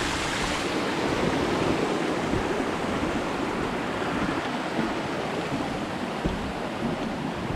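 Rushing water of a mountain stream flowing over rocks, a steady even wash.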